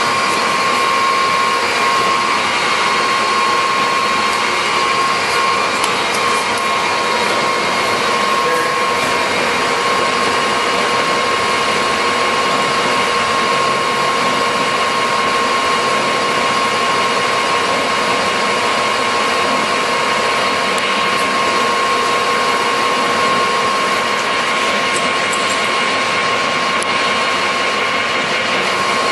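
Harrison 21" x 64" centre lathe running with its spindle turning and the cross slide on power feed: a steady mechanical whine with a high tone over a hiss.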